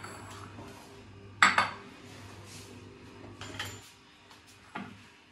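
Kitchen clatter of utensils and dishes on the counter: one sharp clack about a second and a half in, then a few lighter clicks and knocks near the end.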